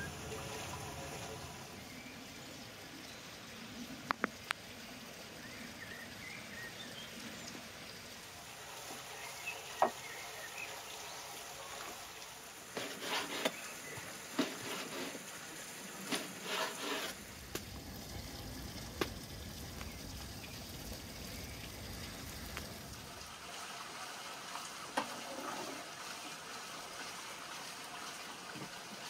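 A steady trickle of running water, with a kitchen knife cutting beef tripe on a wooden cutting board: scattered single knocks, and a quick run of chopping strokes near the middle.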